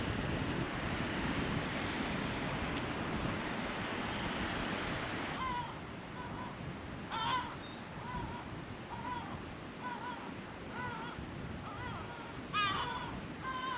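A steady rush of wind on the microphone that cuts off abruptly about five seconds in. After that, a bird calls over a quieter background in a long series of short, repeated chirping notes, a few of them louder.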